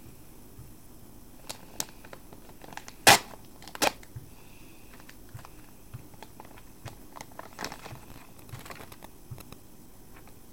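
Plastic packaging of a USB cable being opened and handled: crinkling and crackling with scattered small clicks, and two loud sharp tearing sounds about three and four seconds in.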